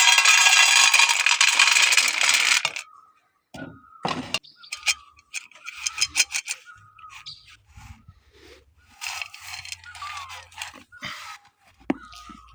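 A farm bird gives one loud, drawn-out call lasting about three seconds, followed by scattered clicks and fainter calls later on.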